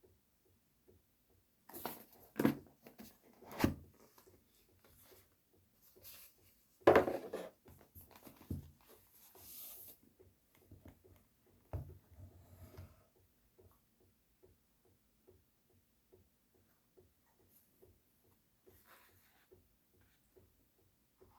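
Handling sounds: a few knocks, taps and rustles of objects being picked up and set down, the loudest about seven seconds in, over a faint regular ticking.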